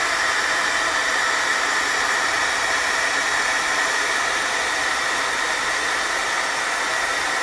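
Handheld craft heat gun (embossing heat tool) running steadily: an even blowing hiss with a steady high whine, as it reheats embossing powder on a paper button to melt it smooth.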